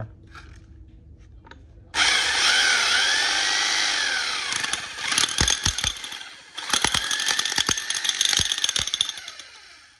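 Hitachi H41SA2 electric demolition hammer (1050 W) run with its chisel bit in the air: motor whine and a rapid rattling of the hammer mechanism. It starts about two seconds in, dips briefly a little past the middle, picks up again, and winds down near the end.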